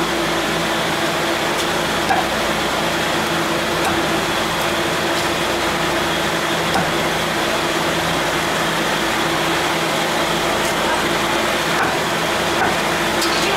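Steady machine hum with a constant hiss, with a few faint, light knocks of a cleaver on a wooden chopping block.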